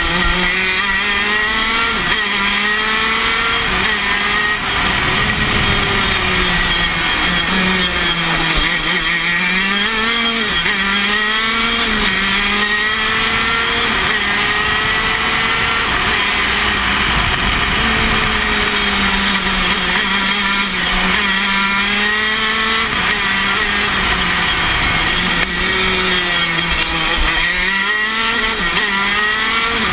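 Tony Kart KZ125 shifter kart's 125cc single-cylinder two-stroke engine at racing speed, heard onboard, its high-pitched note climbing and dropping again and again as the driver accelerates out of and brakes into the corners.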